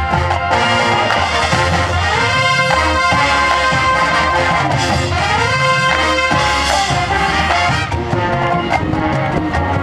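Marching band brass playing loud sustained chords, with two rising runs, over drums; sharper drum strokes stand out near the end.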